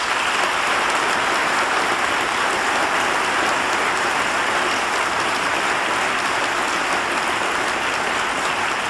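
A large crowd applauding: dense, even clapping that holds steady without a break.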